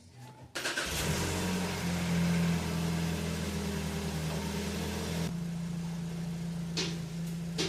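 Ford Escape 2.5-litre four-cylinder engine starting and running at a fast idle, then settling to a quieter idle about five seconds in, with a couple of short clicks near the end.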